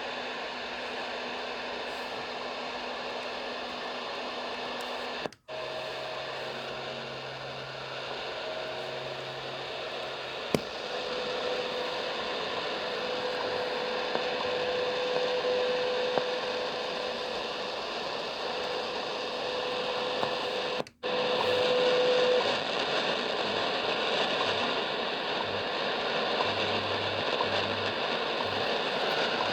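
Realistic DX-440 multiband radio hissing with static from its speaker between stations. A steady whistle tone sounds through the middle, and the sound cuts out abruptly twice, as bands or stations are switched.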